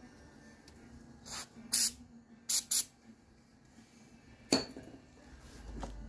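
Aerosol lubricant spray can giving short bursts: one faint, then three loud quick sprays. A single sharp knock follows about 4.5 seconds in.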